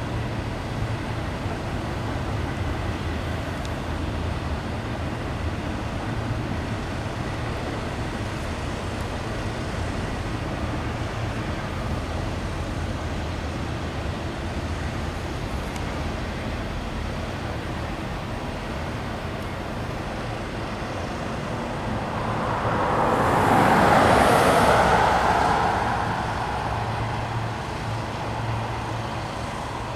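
Steady low engine rumble, with a road vehicle passing by: its noise swells and fades over about four seconds, loudest a little before the end.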